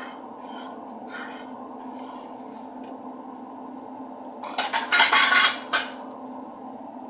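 Metal utensil clattering and scraping against a cast iron skillet for about a second and a half, starting about four and a half seconds in, over a steady low hum.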